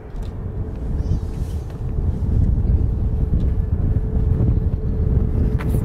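Jet aircraft engines rumbling with a steady hum, growing louder over the first couple of seconds and then holding, with wind buffeting the microphone.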